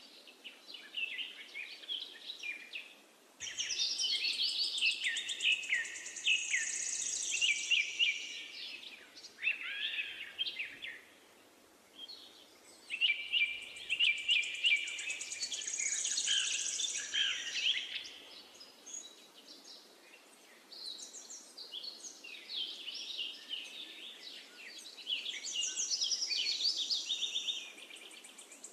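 Birds chirping and singing in quick trilled phrases with sliding notes, repeated in bursts with short lulls, over a faint steady hiss.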